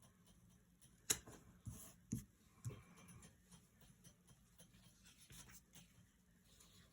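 Faint paper handling: a few soft taps and clicks between about one and three seconds in, the first the sharpest, then light rubbing and rustling, as a paper sticker is placed and pressed onto a planner page.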